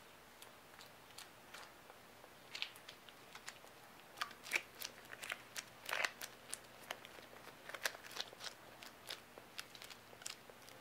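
Gloved hands pressing and smoothing clay onto a sculpture: faint, irregular crackles and small clicks, thickest in the middle.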